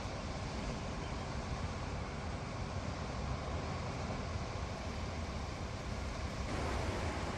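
Steady wash of sea surf and wind with a low rumble, swelling a little about six and a half seconds in.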